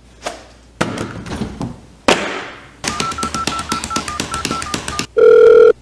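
A few knocks, then a fast run of clicks with short beeps as a cat paws the buttons of a plastic toy telephone, ending in a loud steady electronic tone lasting under a second.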